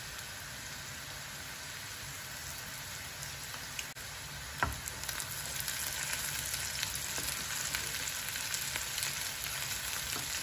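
Diced potatoes with onion frying in oil in a frying pan, a steady sizzle. A single knock about four and a half seconds in, after which the sizzle gets a little louder, with scattered crackles and spatters.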